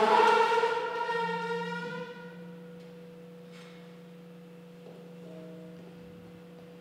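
A loud sustained pitched tone with many overtones fades away over the first two seconds, leaving two quiet steady humming tones with a few faint ticks.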